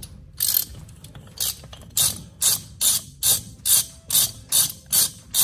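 Ratchet wrench on a spindle nut socket clicking in repeated short strokes as the front hub's spindle nut is run off, quickening to about two or three strokes a second.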